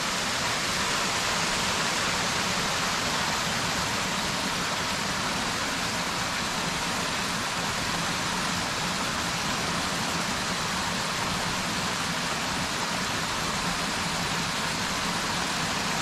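Steady rush of a fast-flowing mountain stream spilling over rocks and a small waterfall.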